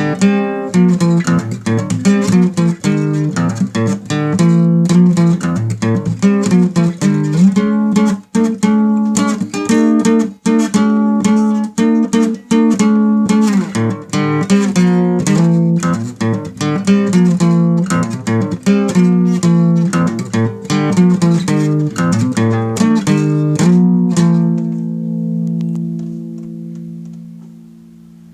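Guitar music: a fast run of plucked notes. Near the end it settles on a held chord that rings out and fades away.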